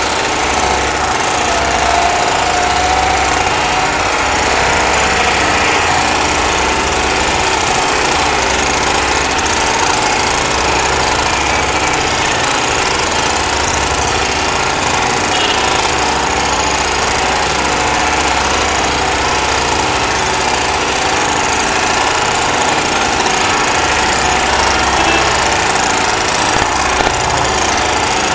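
An engine-driven pump runs steadily, feeding the disinfectant spray hose.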